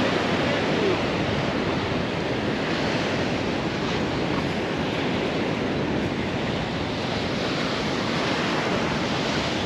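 Surf washing onto a sandy beach, a steady rush of noise, with wind blowing on the microphone.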